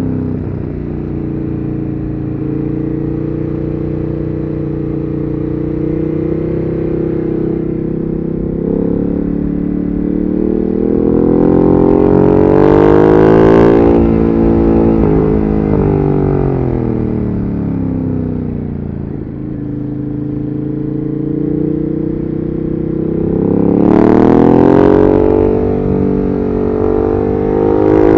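Ducati Monster 1200S's L-twin engine under way, revs rising and falling through the bends. It pulls hard to a peak about halfway, eases off around two-thirds of the way through, then pulls hard again near the end.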